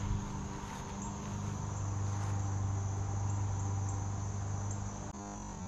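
Insects trilling steadily in the vegetation, a high, even chorus, over a steady low hum.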